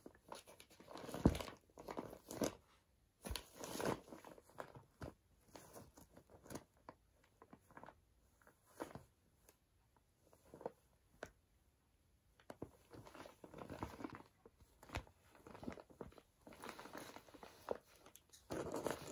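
Cat biting and clawing at a present wrapped in brown kraft paper, the paper crinkling and tearing in fits and starts. It is busiest in the first few seconds and again towards the end, with a quieter spell around the middle.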